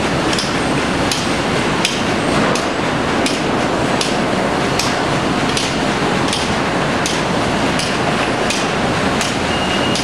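Sawmill machinery running steadily, with sharp knocks about once or twice a second. A thin high tone comes in near the end.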